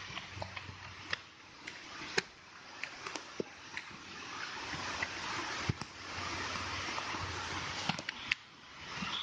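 Running water of a rocky stream, a steady rush, with scattered sharp clicks and knocks throughout.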